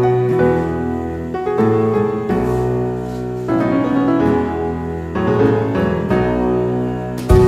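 Background music led by piano, with sustained notes changing about once a second; a louder, fuller passage begins near the end.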